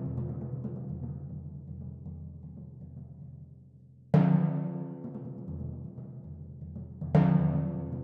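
Timpani struck with felt mallets: the ring of earlier strokes fades away, then a loud stroke about four seconds in and another about a second before the end, each ringing out with a deep pitched tone and slowly dying away.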